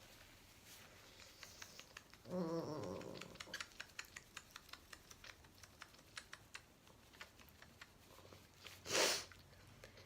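Faint irregular clicks and taps for several seconds, with a short low voice sound about two seconds in and a quick sniff near the end, the loudest sound here.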